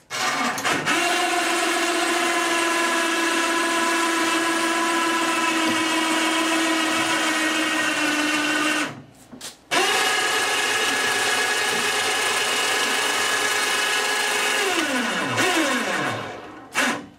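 Electric motor of a hoist or lift whining steadily as it lowers an outboard motor into a test tank. It stops briefly about nine seconds in, starts again, then winds down with a falling pitch near the end.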